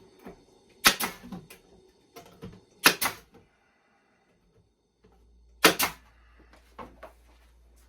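Sharp wooden knocks as a plywood bottom panel is handled and knocked into line on a glued wooden nuc box, coming in quick pairs three times with lighter clicks between.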